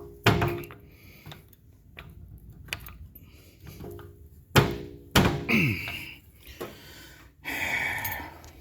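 Metal clunks and knocks from a steel 3-ton off-road floor jack being worked by hand, three loud ones with a brief metallic ring after each, then a short scrape near the end.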